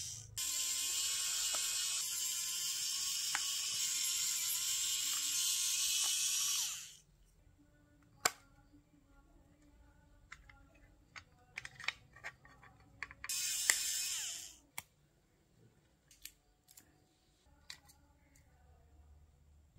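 A cordless electric precision screwdriver whirs steadily for about six seconds, backing screws out of the SSD's metal casing, then again briefly about thirteen seconds in. In between and afterwards, a metal pry tool makes sharp clicks and small taps as the aluminium case is levered open.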